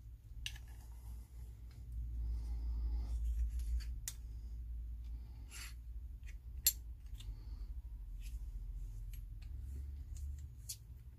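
Black metal flashlight parts being handled and put together: the tail cap with its notched ring is fitted and screwed onto the body. There are scraping sounds and a few sharp metallic clicks over a low steady hum.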